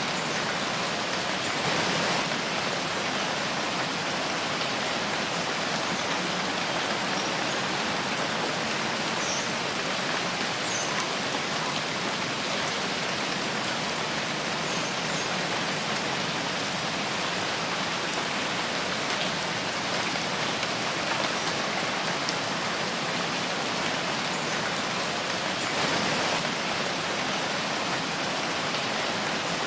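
Steady rain falling in a forest, a dense even patter of drops on leaves and ground, swelling slightly twice.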